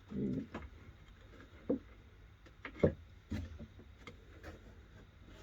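A few light knocks and taps of wooden shelf pieces being handled and set in place: a dull thump at the start, then single sharp knocks a little under two seconds in, near three seconds and soon after.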